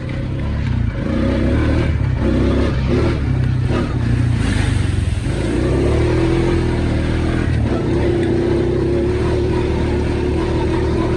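ATV engine under throttle on a muddy trail, picking up about a second in and then pulling at a steady pitch.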